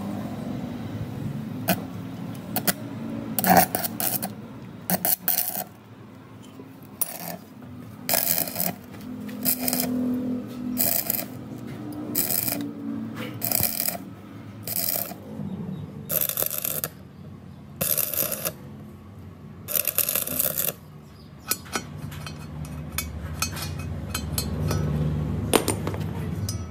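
Stick welding on a broken cast-iron truck differential housing: short runs of crackling arc, one after another, each lasting about a second or less with pauses between, over a low hum.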